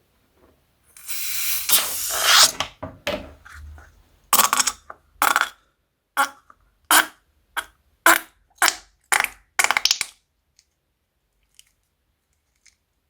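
A cut rubber balloon filled with glue being squeezed out: a long hissing spurt, then about a dozen short squirts roughly half a second apart as glue and trapped air are pushed through the cut.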